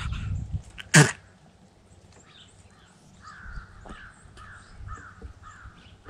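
A crow cawing over and over in the last three seconds, about two harsh caws a second, after a single sharp knock about a second in.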